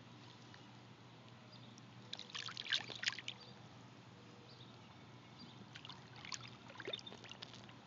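Light water splashing in two brief bursts, about two seconds in and again about six seconds in, as a released bass stirs in the shallow water at the pond's edge.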